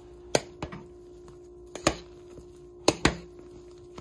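A mixing utensil knocking against a bowl while stirring beaten egg into mashed potatoes: about five sharp, irregular clacks, two of them in quick pairs.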